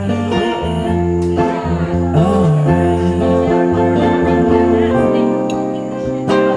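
Live band music: a guitar-led instrumental jam with a steady low bass line and no lyrics sung.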